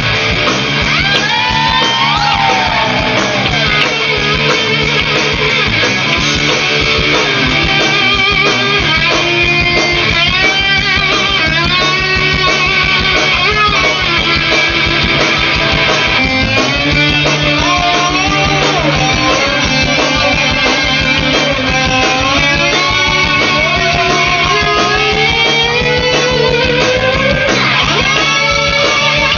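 Live rock band playing: an electric guitar lead full of bent notes and vibrato over bass and drums.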